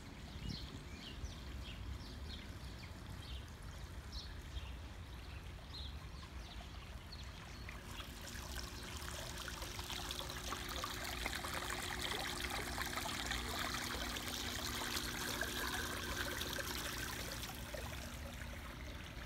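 Water trickling from a garden fountain, swelling louder through the middle with a faint low hum under it. Birds chirp in the first several seconds, and wind rumbles on the microphone.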